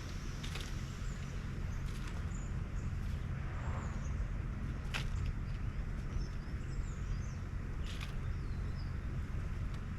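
A few faint, high bird chirps over a steady low rumble, with three sharp clicks about three seconds apart.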